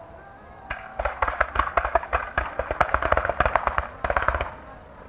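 Fireworks star mine: a rapid run of sharp bangs and crackles that starts about a second in, goes on for some four seconds, then dies down.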